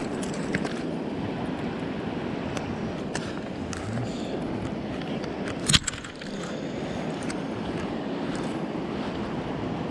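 Shallow mountain stream running over stones, with scattered light clicks and one sharp knock a little over halfway through.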